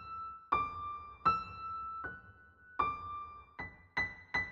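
Background music: a slow, high melody of single keyboard notes, each struck and left to ring, about one every three quarters of a second and a little quicker near the end.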